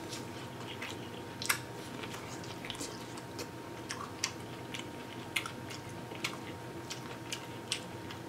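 Biting and chewing corn on the cob: scattered crisp clicks and wet mouth sounds as kernels are bitten off and chewed, the sharpest about a second and a half in.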